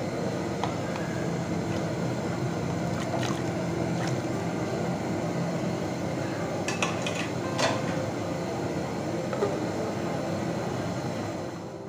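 Steady rushing noise of a pot of water heating on a stove, with a few sharp clinks of cookware, the loudest about two thirds of the way through, as beef chunks go into the pot and its glass lid is set on.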